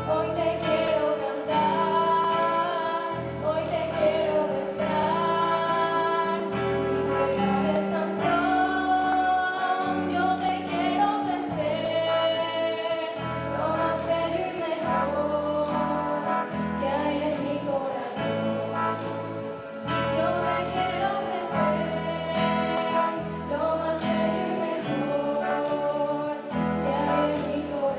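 Devotional hymn: a group of voices singing over guitar and bass with a steady beat.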